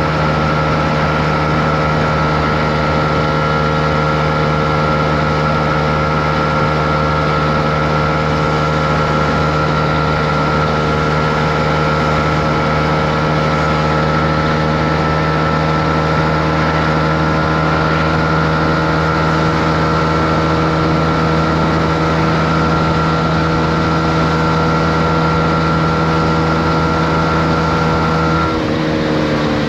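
Honda CB125R's 125 cc single-cylinder four-stroke engine running at steady, unchanging revs, heard from on the bike. Near the end the engine note changes and starts to fall as the revs drop.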